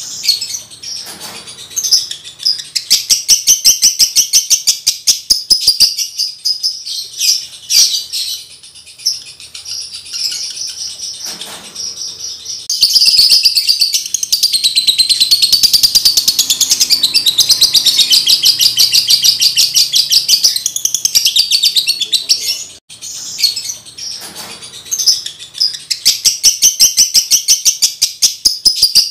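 Male lovebird in breeding condition singing: long runs of rapid high-pitched chattering chirps, with a brief pause near the middle.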